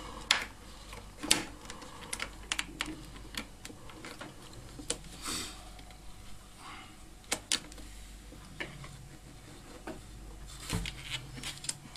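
Irregular small clicks and taps from hands working a steel bicycle brake cable along a dishwasher's plastic door-hinge bracket and its spring, a few knocks a second apart.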